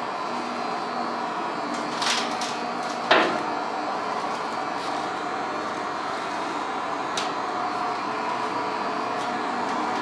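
Ship's diesel engine running steadily in the engine room, a steady machine hum with a few light clicks and one sharp metallic knock about three seconds in.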